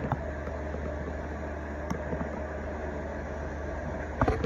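3.7 kW VFD-driven spindle motor of a CNC machining centre running steadily at about 500 RPM, giving a low, even hum. A short knock comes near the end.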